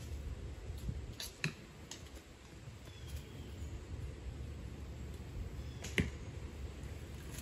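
A few sharp clicks over a steady low outdoor rumble: a pair about a second in and the loudest single click about six seconds in.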